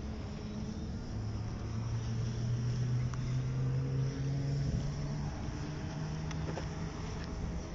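A motor's steady hum with a strong low tone that steps up in pitch about halfway through and again a little later.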